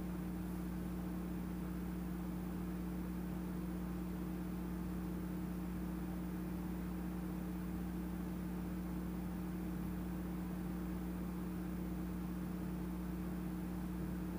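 Steady mechanical hum with a low drone and faint hiss, unchanging throughout, with no footfalls or knocks from above.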